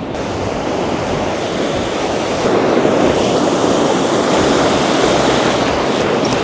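Ocean surf washing onto the beach, a steady rush of breaking waves that swells a little about two seconds in.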